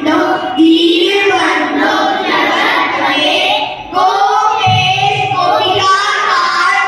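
A group of children chanting shlokas together in a sung melody into a microphone, with a brief pause for breath about four seconds in.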